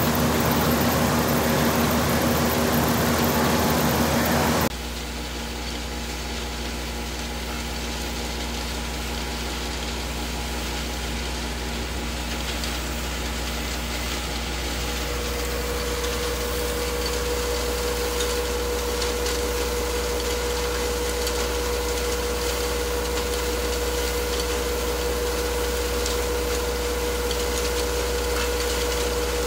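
Sawmill machinery running steadily. About five seconds in it drops suddenly to a quieter, steady deep hum, and past the halfway point a steady whine joins it.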